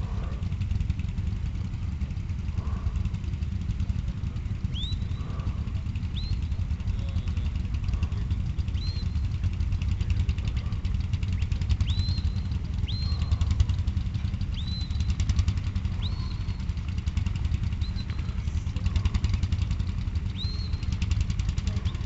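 Sheepdog handler's whistle commands: about ten short, high whistles, each sweeping up and then held briefly, spaced a second or two apart and starting about five seconds in. Under them runs a steady low rumble.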